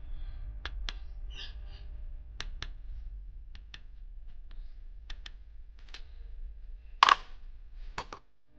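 Metal screwdriver tip tapping and scraping on the solder joints of a circuit board: sharp clicks every second or so over a low steady hum. About seven seconds in comes a louder scrape, then two quick knocks as the board is handled.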